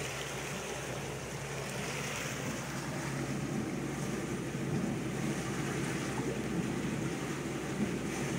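Wind buffeting the microphone and choppy water washing along the hull of a wooden boat under tow, over a steady low hum.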